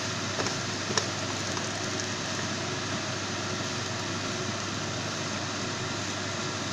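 Cabbage and smoked ribs sizzling steadily in a frying pan, with a couple of light taps of a wooden spatula about a second in.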